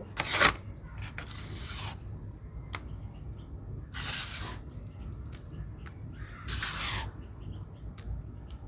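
Dried soft dirt paste crunching and crumbling in about four short bursts, the loudest just after the start, with small crackling ticks between them. The crunch means the paste has dried out.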